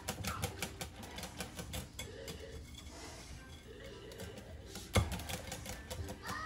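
Wire whisk beating pumpkin pie filling in a glass bowl: rapid clicking of the wires against the glass that thins out in the middle. A single louder knock comes about five seconds in.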